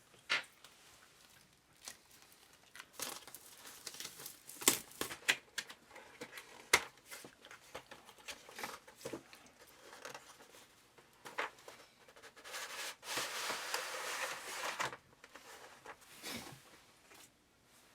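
Small keyboard parts being handled during a build: scattered sharp clicks and knocks, with a steady crinkling rustle for about two seconds from roughly 13 s in.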